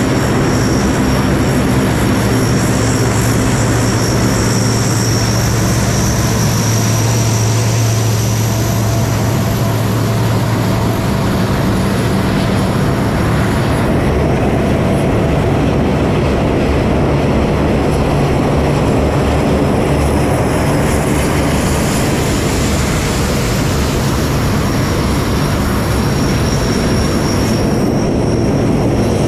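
Four-engine turboprops of C-130 Hercules transport aircraft running as they taxi past: a loud, steady propeller drone with a low hum and a high turbine whine over it.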